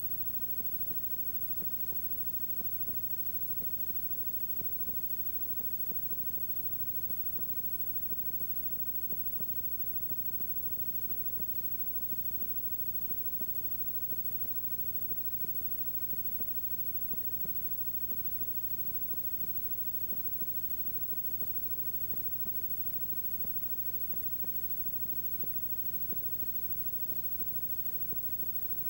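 Steady electrical hum with many overtones under a constant hiss, with faint crackles, and no sound from the field or crowd: the noise floor of an old tape copy's audio track.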